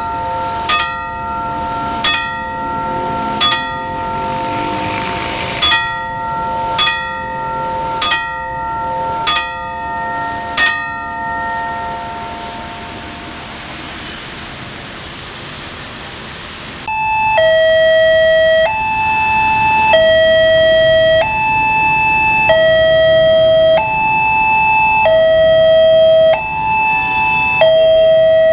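Level-crossing warning bell on its pole, struck about once every 1.2 seconds with a ringing tone, which stops after about 11 seconds and rings away. At about 17 seconds a loud electronic two-tone crossing alarm starts, switching between a higher and a lower tone about every second and a quarter: the crossing is warning of an approaching train.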